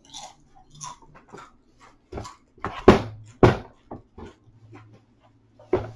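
A man's pained breathing and small vocal noises from the burn of ghost pepper chips, mixed with rustling and a few loud knocks as he shifts about, the loudest about three seconds in.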